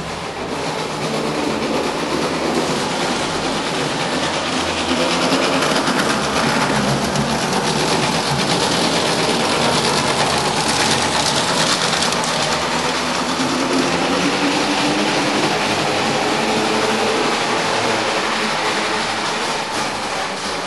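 The motorised bogies of an LGB G-scale model tram running on its track during its first test runs. A steady mechanical running noise with a faint motor whine that rises and falls in pitch.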